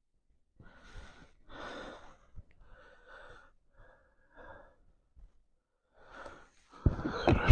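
A man breathing out audibly in a series of short breaths, then a loud voiced sigh near the end.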